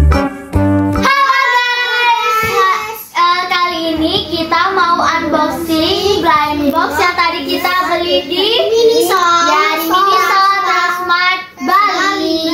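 A child singing a melody, preceded by a short snatch of keyboard music that stops about a second in.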